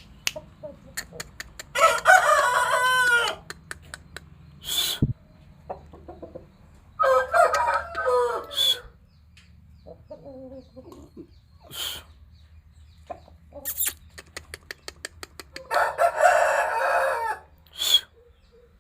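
Aseel roosters crowing three times, each crow about a second and a half long, with short clucks and sharp clicks in between.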